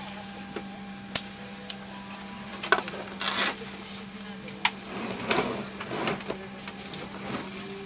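Steady hum of an airliner cabin's air system, with a few sharp clicks and knocks and two stretches of rustling.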